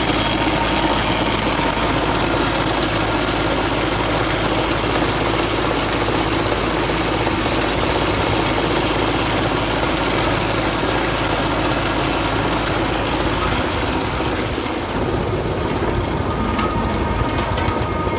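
An engine running steadily at idle, a constant drone with a faint steady whine in it. About three-quarters of the way through, the hiss on top thins out and faint ticks come through.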